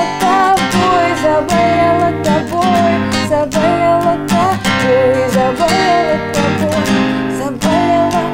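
Ibanez acoustic guitar strummed in a steady chord pattern, with a woman's voice singing a melody over it that pauses briefly twice.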